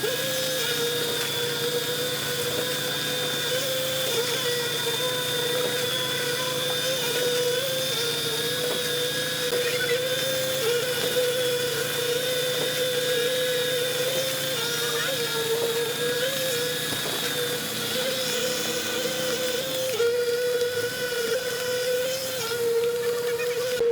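A motor-driven machine running steadily, giving a whine whose pitch wavers slightly, over a noisy hum.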